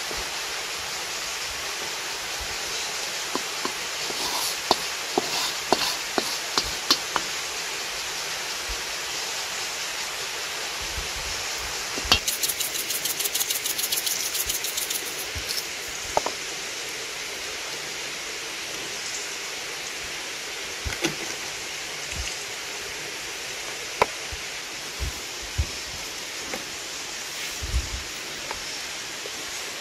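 Steady rush of running water, with scattered sharp clicks and a short run of rapid ticking about twelve seconds in.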